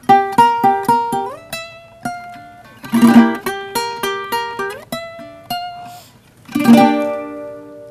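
Venezuelan cuatro played solo: a melody of single plucked notes, some sliding in pitch, broken by full strummed chords about three seconds in and again near the end.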